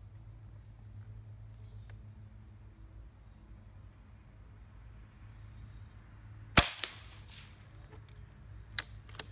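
A single shot from a Hatsan Nova QE .25-calibre PCP air rifle with its shrouded barrel: one sharp crack about two-thirds of the way in, with a fainter knock a moment later from the pellet striking the target. Two small clicks near the end come from the rifle's action being worked. Insects chirp steadily throughout.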